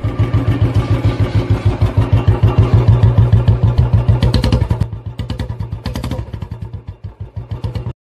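Royal Enfield motorcycle's single-cylinder engine thumping in a fast, even beat as the bike gets under way. It grows louder for the first few seconds, then fades away over the second half.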